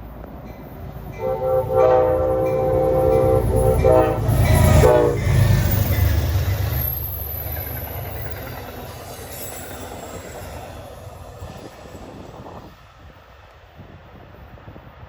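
Amtrak GE P32AC-DM diesel locomotive sounding several horn blasts as it approaches, the horn's pitch dropping as it passes. Then the rumble of the train going by, fading away.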